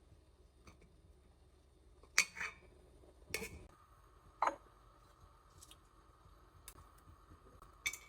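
A few sharp clinks and knocks of kitchen utensils and dishes being handled, with quiet between them.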